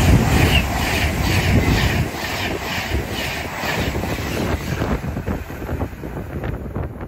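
Avanti West Coast Class 390 Pendolino electric train passing through the station at speed, a loud rush with a regular beat of about two a second, loudest at first and slowly fading as the train goes by.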